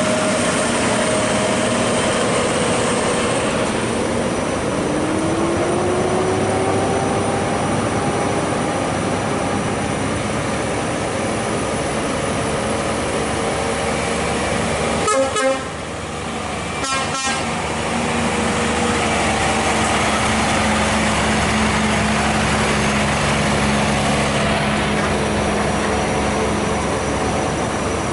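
Heavy Scania diesel tractor units running under load as they pass on a hill climb. The engine note rises about four seconds in, and two short clicks come about halfway through.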